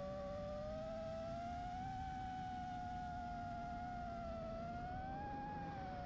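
FPV quadcopter's motors and propellers whining steadily, the pitch drifting slowly up and down with the throttle, over a low rumble.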